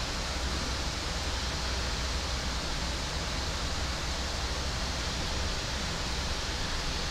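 Steady rushing noise on the flight deck of a Boeing 737 MAX 8 in the climb: airflow over the airframe with a deep, even rumble underneath.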